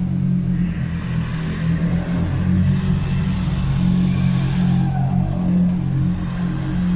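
Turbocharged engine of a Nissan Navara NP300 pickup running steadily under light throttle while driving, with the stock turbo's blow-off whoosh and hiss swelling and fading above the engine note.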